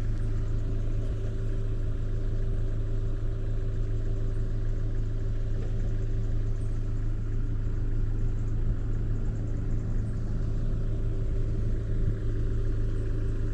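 Vehicle engine running with road noise: a steady low drone that holds unchanged, as heard while driving.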